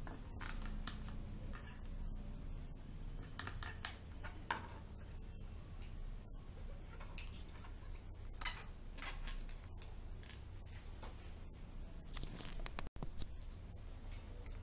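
Kitchen knife cutting slices of white bread into small squares on a plastic chopping board: short scraping cuts with scattered sharp taps of the blade on the board.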